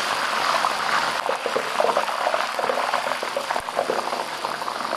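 Hot oil in a wok frothing and crackling with a dense, steady patter of fine pops as scallion, ginger and water-soaked Sichuan peppercorns fry in it.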